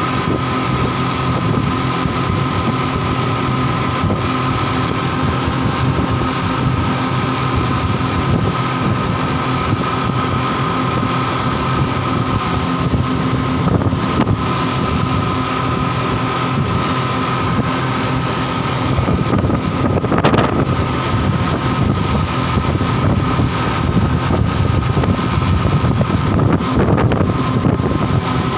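Speedboat engines running steadily at cruising speed, heard from inside the cabin: a constant drone with a steady high whine over the rush of wind and water. There is a brief louder bump about twenty seconds in and another near the end.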